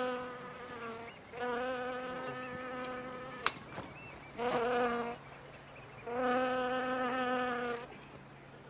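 A mosquito buzzing in four stretches, each holding one steady pitch, cutting in and out. A single sharp crack comes about three and a half seconds in.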